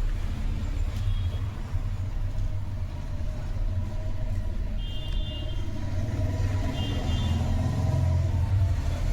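A steady low rumble like a running engine or passing traffic, with three short high-pitched beeps or chirps about one, five and seven seconds in.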